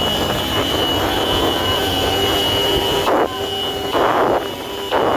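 Several motorcycles running at speed close together, with a rush of wind on the microphone and a steady high tone throughout. A few short, louder rushes come in the last two seconds.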